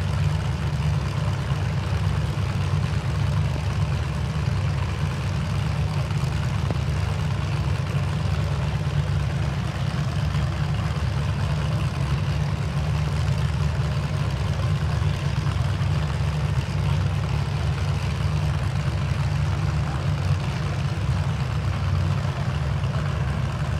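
Demolition derby trucks' engines idling in a steady low rumble.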